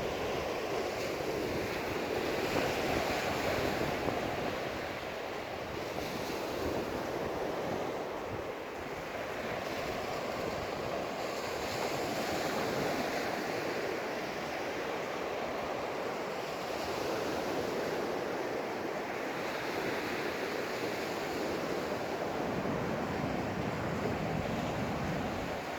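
Ocean surf breaking and washing onto the beach, a continuous rushing that swells and eases slowly, with some wind buffeting the microphone.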